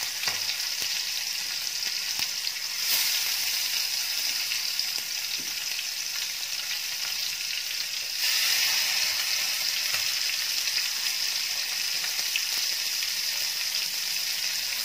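Pieces of hilsa fish coated in mustard paste sizzling in hot mustard oil in a steel pan, a steady hiss that jumps louder about three seconds in and again about eight seconds in as more pieces are laid into the oil.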